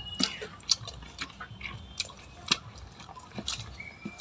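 Close-up eating noises: wet smacks and clicks of a mouth chewing, irregular, about two or three a second.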